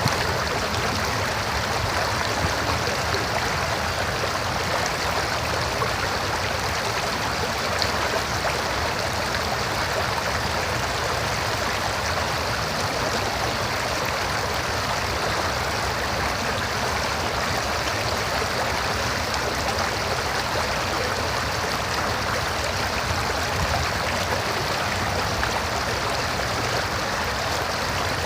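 River water flowing over rocks: a steady, unbroken rushing and babbling.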